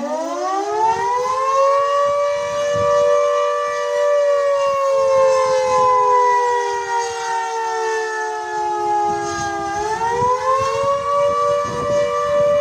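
Castle Castings civil-defence air-raid siren winding up from low to full pitch, sounding two tones together. Its pitch then slowly sags and climbs again about ten seconds in: the rising and falling wail of the attack warning signal.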